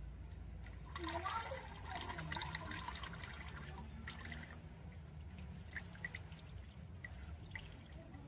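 Used engine oil from a 4D56 diesel sump draining into a metal basin: a thin stream trickling into the pool of oil, thinning to separate drips.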